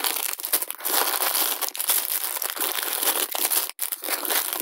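Clear plastic packets full of small LEDs crinkling and rustling as they are handled and set down, an irregular, continuous crackle.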